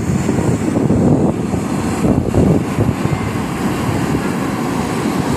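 Private jet's engines heard from the ground as it climbs away after takeoff, a steady deep rumble, with wind buffeting the microphone.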